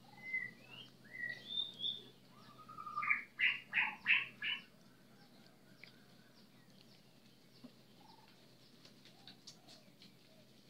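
Birds chirping: a few short chirps, then a quick run of about five louder notes around three to four seconds in.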